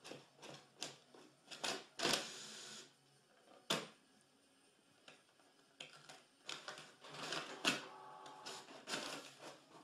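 Desktop printer working under a cat lying on it: a string of irregular mechanical clicks and short whirs, with a brief steady whine about eight seconds in.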